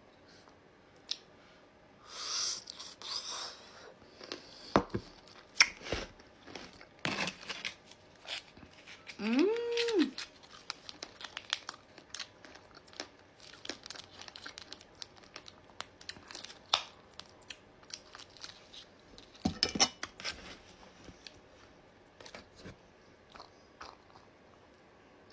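A small plastic sachet crinkling and tearing for about a second and a half, then scattered crunches and clicks of chewing rolled lavashak (sour fruit leather) coated in pomegranate seeds. A short rising-and-falling hum of the voice comes near the middle.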